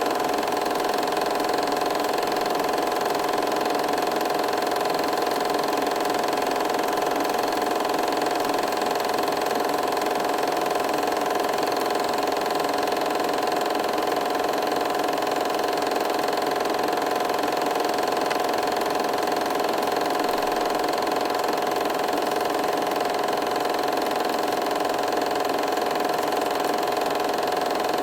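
A machine running steadily: a constant hum with a few steady tones and no change in speed.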